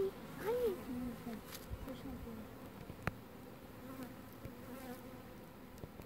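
A swarm of Russian honey bees buzzing around their hive box, a steady hum.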